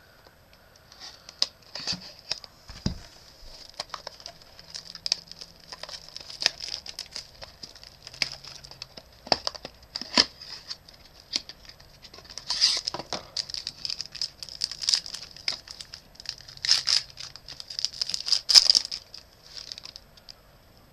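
Trading card pack being torn open and its wrapper crinkled, a run of short crackling tears that comes in bursts, the loudest a couple of seconds before the end.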